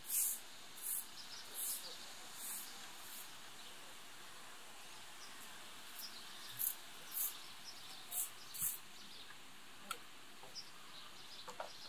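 Faint outdoor ambience: short, very high-pitched chirps, a few at a time in two clusters, over a steady hiss, with a single sharp click near the end.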